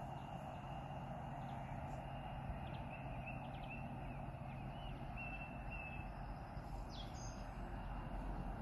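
Faint outdoor ambience with a steady low hum, and small birds chirping: a short run of thin high chirps in the middle and one falling chirp near the end.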